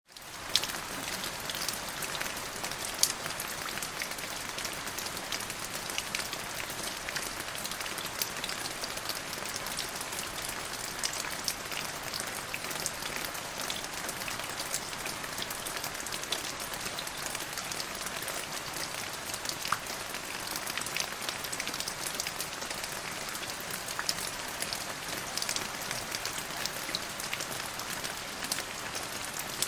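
Steady rain falling: a continuous even hiss dotted with sharp individual drop ticks. It fades in at the very start.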